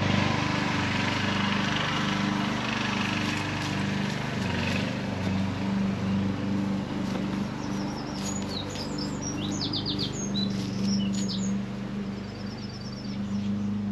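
A motor drones steadily with a low hum. Birds chirp over it from about seven seconds in.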